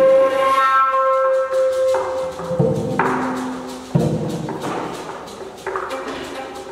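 Live music from tall hand drums and a flute: the flute holds one long note for the first two and a half seconds while the drums are almost silent, heavy drum strokes land about three and four seconds in, and the drums then pick up a quick rhythm under the flute.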